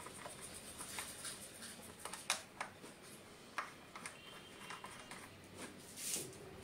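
Faint scattered clicks and taps of a screwdriver and hands working at a plastic motorcycle visor as it is screwed onto the headlight cowl, with a short rustle about six seconds in.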